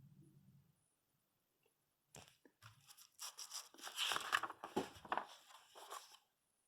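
Paper catalog pages being handled and turned: irregular crinkly rustling that starts about two seconds in, is loudest around the middle, and dies away near the end.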